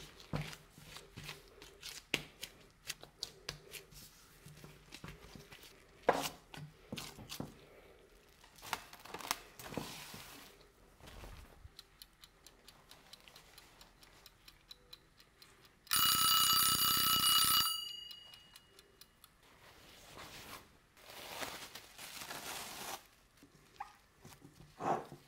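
Kitchen work sounds while making bread: scattered taps, clicks and handling noises. About sixteen seconds in comes a loud ringing buzz lasting about two seconds, followed a few seconds later by a softer rustling hiss.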